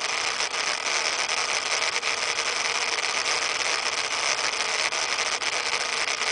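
Steady hiss of hurricane wind and driving rain, without let-up.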